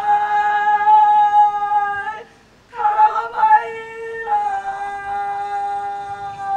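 A solo female voice singing long held notes in two phrases, with a short break about two seconds in.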